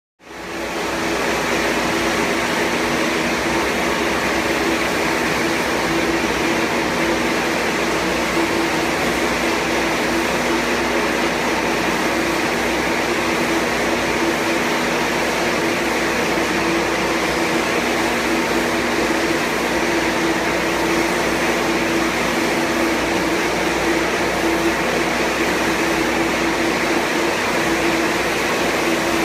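Screw air compressor running steadily: a constant machine hiss with an even low hum.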